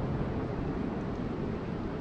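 Rain falling steadily, an even rushing noise.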